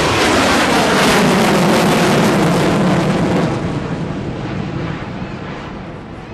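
F-15 fighter jet's twin engines in afterburner: a loud roar whose pitch slides down as the jet passes, then fading over the last few seconds as it pulls away.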